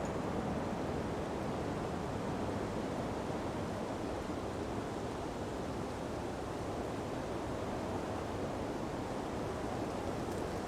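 Steady rush of ocean breeze and surf, an even, unbroken wash of noise with no distinct waves or gusts standing out.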